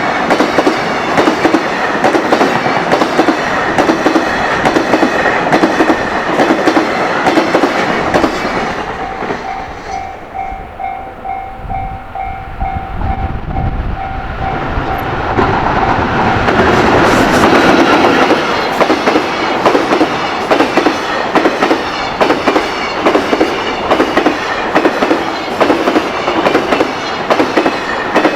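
Container freight train wagons passing fast over rail joints with a rapid, continuous clatter. Partway through the clatter fades and a level-crossing bell dings in a steady pulse over a low rumble. About halfway in another train arrives and the joint clatter builds up again.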